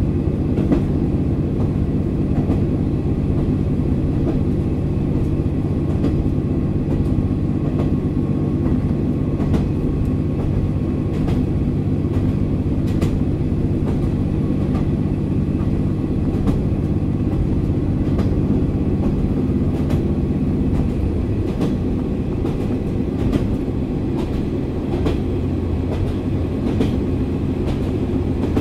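Running sound of a JR Kyushu KiHa 40 8000-series diesel railcar, re-engined with a Komatsu diesel, heard from on board. The engine drones steadily while the wheels click now and then over rail joints. About 21 seconds in, the engine note drops away and the car runs on with only the rumble and clicks of the wheels.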